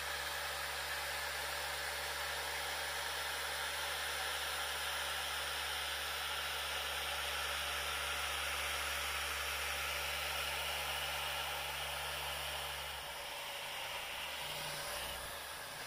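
Dual-action orbital polisher with a foam pad running steadily against car paint, a continuous whirring hiss, buffing cutting polish into black paint to take out remaining micro scratches. Its low hum drops away about 13 seconds in while the whir goes on.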